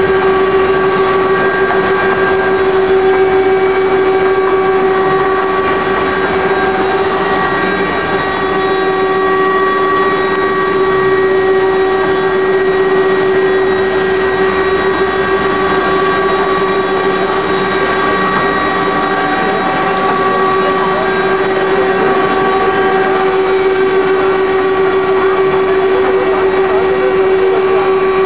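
Eight-spindle rotary CNC router carving, its spindles running with a steady, loud whine over the rasp of the cutters.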